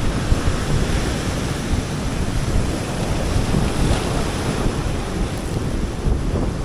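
Ocean surf breaking and washing on a beach, heard as a steady wash of noise, with wind buffeting the microphone.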